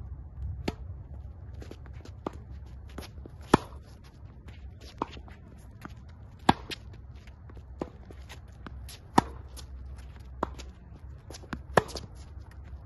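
Tennis groundstroke rally on an outdoor hard court: sharp pops of a racket striking the ball, the loudest about every three seconds, with fainter hits and ball bounces between them and footsteps on the court.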